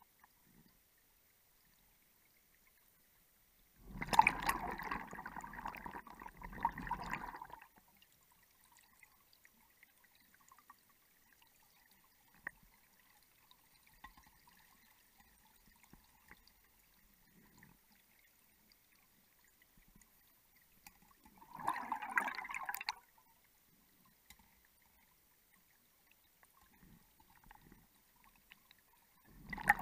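Gas bubbles gurgling underwater from a rebreather diver, in bursts: a long one of about three and a half seconds, a shorter one past the middle, and another beginning at the very end.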